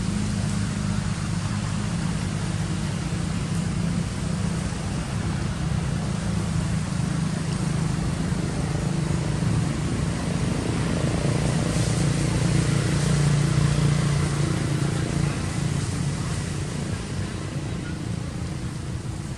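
Steady low engine-like drone over a background hiss, a little louder past the middle and easing off near the end.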